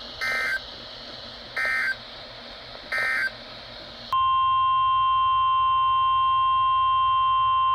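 NOAA Weather Radio Emergency Alert System tones: three short buzzing bursts of SAME digital data, the end-of-message code, over radio hiss, then, about four seconds in, the steady 1050 Hz weather radio warning alarm tone.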